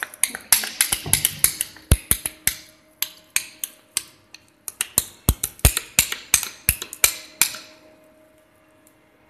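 Rapid sharp clicking and knocking, about three a second, as a hand scraper works the melted polypropylene band on the chrome rollers of a lab two-roll mill. The clicking stops near the end, leaving a faint steady hum.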